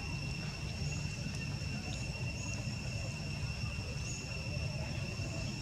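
Outdoor ambience: a steady high-pitched whine holding one pitch throughout, over a low rumble.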